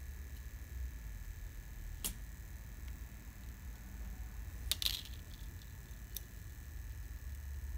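A few small clicks from needle-nose pliers handling a thin wire against a capacitor bank. The sharpest is a short crackle of clicks about five seconds in, heard over a low steady hum.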